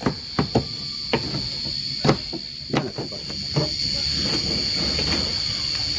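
Kitchen knives slicing green chilies on a plastic cutting board: irregular knocks of the blades striking the board, over a steady high-pitched hiss.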